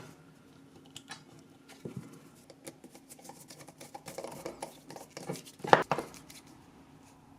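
Small clicks, taps and rustles of brass binding screws (Chicago screws) being fitted through a leather belt strap, with one sharper metallic click a little before six seconds in.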